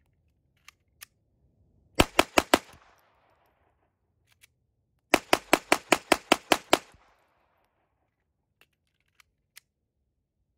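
Glock 44 .22 LR rimfire pistol firing in rapid strings: four quick shots about two seconds in, then about eight more quick shots from about five seconds in, each shot trailing off in a short echo.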